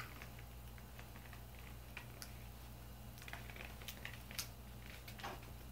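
Faint, irregular small clicks and snaps of an HP 15-1271wm laptop's plastic screen bezel being pried up by fingernails, its clips working loose, with a few sharper clicks in the second half.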